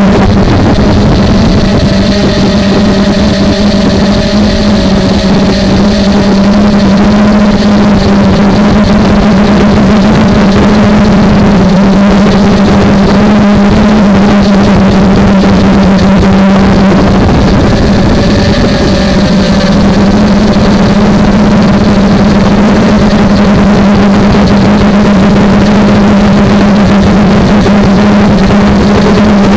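Brushless motors and propellers of a 250-size FPV quadcopter, heard loud and close from its onboard camera: a steady drone with a strong low hum that shifts slightly in pitch as the throttle changes. The motors are old, which the pilot blames for the poor sound.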